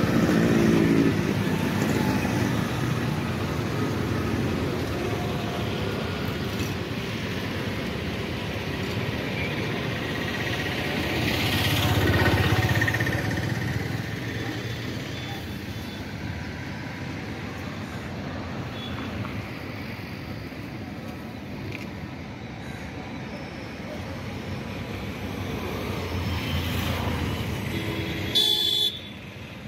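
Road traffic on a bridge, with motor scooters and motorcycles passing. One passes close near the middle, swelling and fading, and a horn sounds briefly. Near the end there is a short rattle, then the sound drops away sharply.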